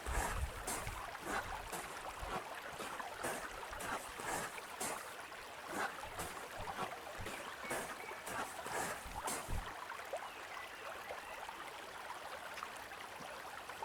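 Footsteps crunching on a gravelly, rocky trail at a walking pace of about two steps a second, with some heavier thuds. The steps stop about ten seconds in, leaving a steady hiss.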